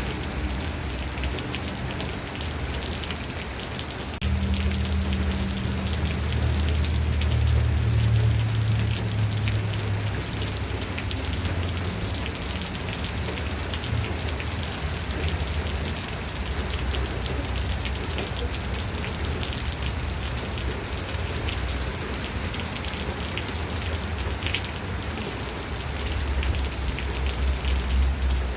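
Steady rain with a dense patter of drops, with a low rumble underneath that swells about four seconds in and again near the end.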